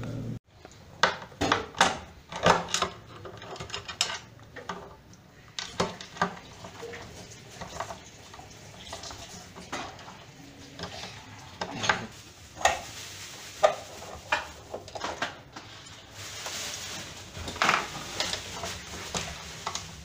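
Hand tools clinking and clicking against the steel transmission bracket and bolts of an LG top-load washer as the transmission is unbolted with a 10 mm socket: irregular sharp metallic clinks.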